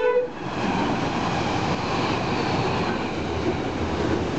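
Freight train passing close by: the tail end of the locomotive's horn blast right at the start, then the steady rolling noise of the locomotive and container wagons going past on the rails.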